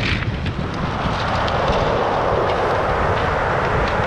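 Rough surf breaking and washing over a steep pebble beach: a steady roar that swells about a second in as a wave rushes up the stones, with a few small clicks of pebbles and some wind on the microphone.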